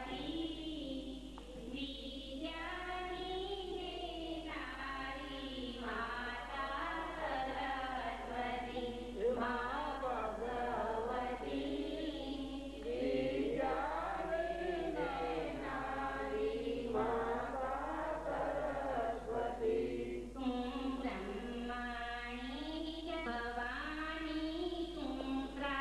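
A group of voices singing together in a slow, chant-like melody that runs on without pause.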